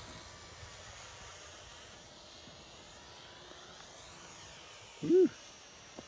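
Faint, steady hum of a small RC model plane's electric motor and propeller as the 400 mm Eachine Mini P-51D Mustang flies past; the plane is really quiet. About five seconds in, a person says a short, loud "whew".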